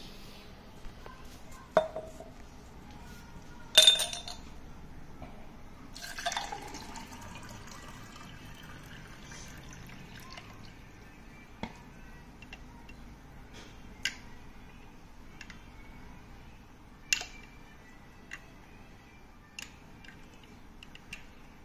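Water poured into a drinking glass with a black Sulemani hakik (agate) stone at its bottom, with a few sharp clinks of stone on glass and small drips.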